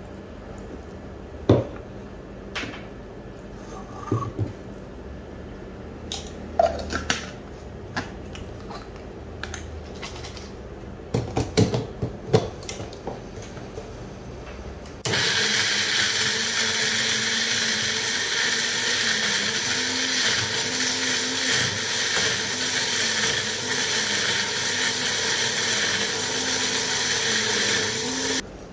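Scattered knocks and clinks of jars and ingredients being handled. About halfway through, an Ellies personal bullet-style blender starts suddenly and runs steadily, grinding chillies, shallots, candlenuts, lemongrass, galangal and turmeric with water into a fine paste. Its pitch wavers slightly, and it cuts off abruptly just before the end.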